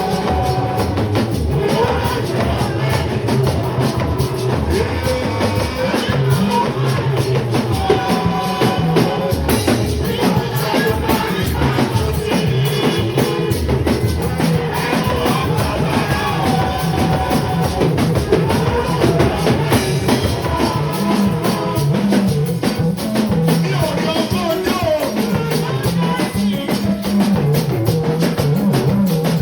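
Worship music played by a band with a drum kit keeping a steady beat, with singing over it.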